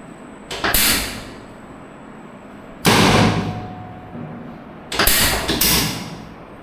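Sharp thumps during a chiropractic adjustment, each fading over about half a second: two close together under a second in, a loud one about three seconds in, and two more about five seconds in.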